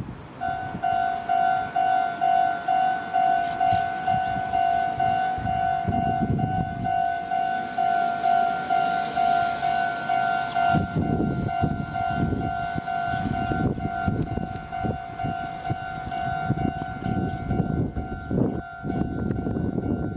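Japanese level-crossing warning bell starts about half a second in and rings steadily, about two strokes a second. About eleven seconds in, a Meitetsu train runs through the crossing, its wheels rumbling and clattering over the rail joints while the bell keeps ringing.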